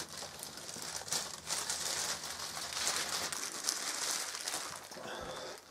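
Thin plastic bag around a flat-screen TV crinkling and rustling as the set is lifted out of its cardboard box by the bag's handles. It fades out about five seconds in.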